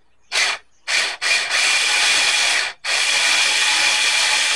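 Electric screwdriver motor whirring in three short bursts, then held on, stopping for a moment just under three seconds in and starting again, as it backs out a screw.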